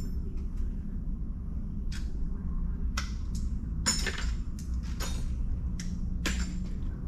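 Small steel sockets clinking against each other and other tools while the right size is picked out of a set. There are several sharp metallic clinks, about one a second from two seconds in, over a steady low hum.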